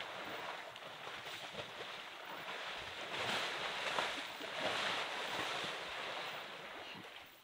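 Elephant wading in a shallow mud wallow, muddy water sloshing and splashing around its legs, loudest about three to five seconds in.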